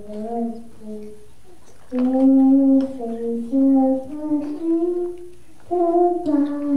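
A young child singing solo, holding notes that step up and down in pitch, with short breaks between phrases.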